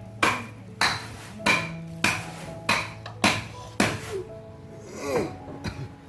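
A kitchen tool striking a hard surface in a steady rhythm: about seven sharp knocks roughly every 0.6 s, each ringing briefly, stopping about four seconds in. Background music plays underneath.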